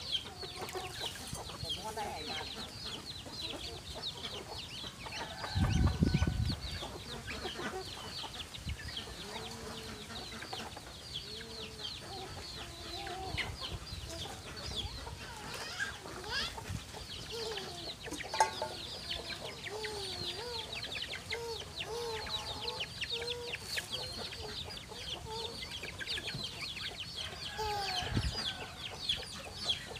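A flock of chickens clucking, with rapid high peeping going on throughout. A brief loud low rumble comes about six seconds in.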